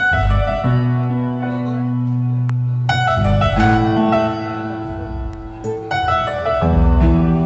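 Keyboard music playing slow, sustained chords that change every second or two, over deep bass notes.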